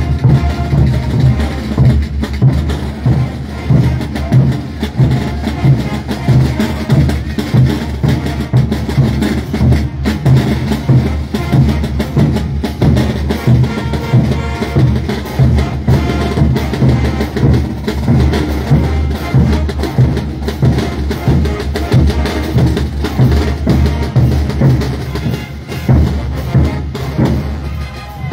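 Drum section of a Peruvian brass band, snare drums and large bass drums, playing a steady morenada beat of roughly two strong low drum beats a second.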